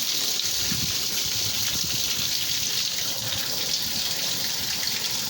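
Steady rushing hiss of falling rain and running water.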